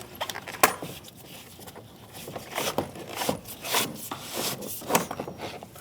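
Rubber weather stripping being pulled off a car door's edge: irregular rubbing and scraping with scattered sharp clicks.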